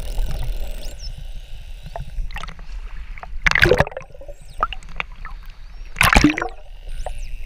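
Action camera moving through seawater and breaking the surface: a steady low rumble of water against the housing, with two loud splashing surges, about three and a half and six seconds in. A few faint high rising whistles, from dolphins, come through near the start and near the end.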